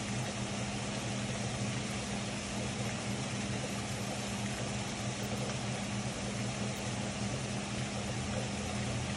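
Heavy rain falling as a steady, even hiss, with a steady low mechanical hum underneath.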